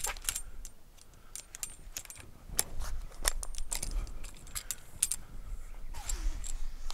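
Scattered light clinks and clicks of a portable awning's metal poles and fittings as the awning is raised and set up, with a brief rustle of its fabric near the end.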